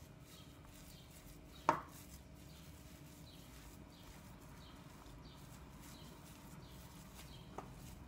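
Spoon stirring and scraping a crumbly cooked lentil and bulgur mixture in a stainless-steel tray: faint, scattered scratchy strokes. There is one sharp knock about two seconds in and a lighter tick near the end.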